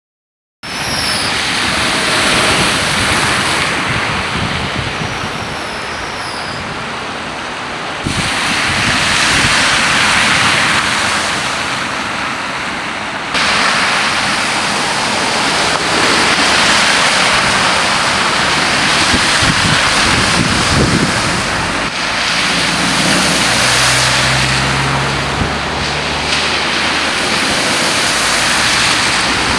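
Cars driving through deep floodwater, their tyres throwing up spray: a loud, steady rushing hiss of splashing water and tyre noise over engine sound, which changes abruptly about 8 and 13 seconds in.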